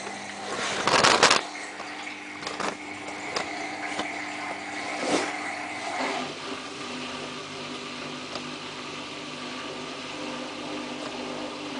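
Samsung WF8804RPA washing machine running in service mode just after spin is selected: a loud burst of noise about a second in and a few knocks, then a steady motor hum.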